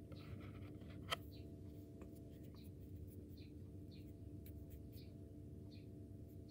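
A coin handled between fingers: one sharp click about a second in, over a faint steady electrical hum.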